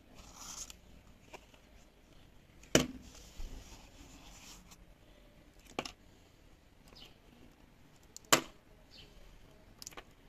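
Hands handling plastic speaker parts on a wooden workbench: a few sharp clicks and knocks, the loudest about three seconds in and again about eight seconds in, with light rustling between.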